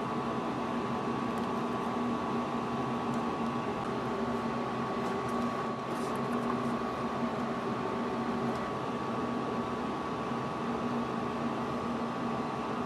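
A steady machine hum with a whirring hiss under it. A few faint clicks come about five to six seconds in as RCA plugs are pushed into input jacks.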